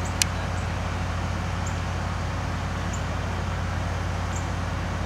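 Vehicle engine running at a steady low hum, with one sharp click about a quarter second in.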